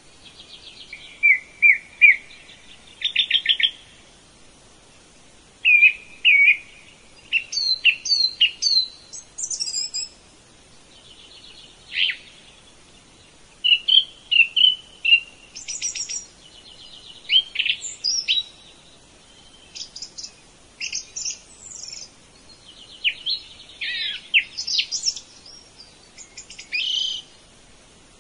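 Songbirds chirping and singing: short chirps, rapid trills and high whistles in quick phrases with brief pauses between them.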